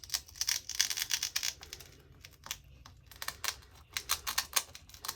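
Plastic packaging handled and opened, giving an irregular run of quick crinkles and clicks.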